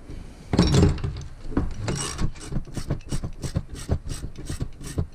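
Ratchet wrench clicking quickly and evenly, about five clicks a second, as it turns the threaded rod of a coil spring compressor to squeeze a Miata rear coil spring, after a louder burst of noise about half a second in.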